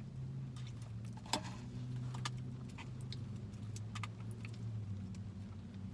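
Utensil clicking and scraping against a takeout food bowl in scattered sharp taps, the loudest about a second and a half in, over a steady low hum.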